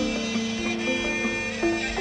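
Traditional Javanese karawitan (gamelan) music, its melody in long held notes that step up and down in pitch, with struck notes marking the beat.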